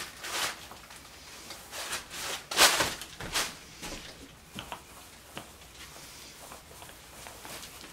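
Small paint roller being run around the edge of a glossy resin-coated tabletop to lay on a topcoat: a series of short swishing rubs, the loudest about two and a half seconds in, then a few fainter ticks.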